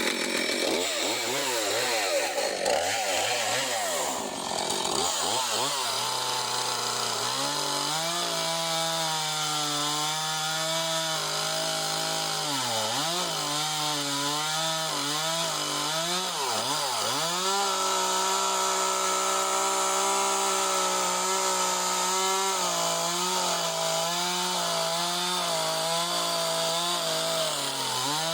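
Husqvarna Rancher 450 two-stroke chainsaw with a 20-inch bar running at high revs while cutting through a large black oak log. Its pitch wavers at first, then holds steady, dipping briefly and recovering twice about halfway through as the engine bogs under load.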